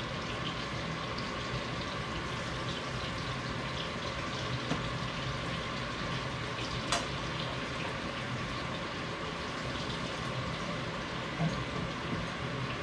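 Potato wedges sizzling in oil in a skillet as they fry, a steady hiss, with one sharp clink about seven seconds in.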